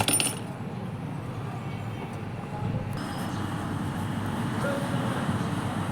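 A short clatter, then the steady low rumble of a running motor vehicle, growing slightly louder about three seconds in.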